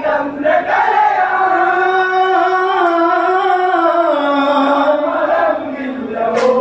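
Onamkali folk song: voices singing one long held line that slowly falls in pitch, with a sharp click near the end.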